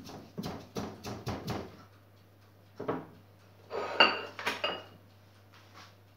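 Pestle pounding garlic with rosemary and sage to a paste in a mortar: a run of quick knocks in the first two seconds, then a single knock and a short cluster of knocks with brief clinks about three to four and a half seconds in.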